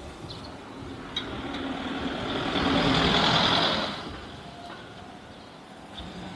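A road vehicle, likely a truck or bus, passing close by: its noise swells over about two seconds, is loudest for about a second and a half, then fades away about four seconds in, with a hissy, high edge at its loudest.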